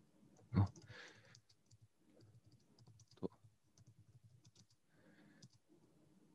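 Faint computer keyboard typing: scattered soft key clicks, with one sharper click a little after three seconds in.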